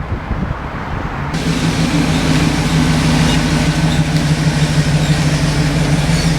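1998 Chevy Tahoe's 5.7-litre Vortec V8 running, settling into a steady, even hum about a second in.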